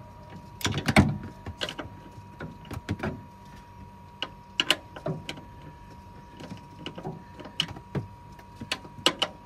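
Hand wrench clicking and clanking in irregular short strokes while tightening the strut tower top-mount bolts, which were found loose: the suspected cause of a creaking when the steering is turned. A faint steady high tone sits behind the clicks.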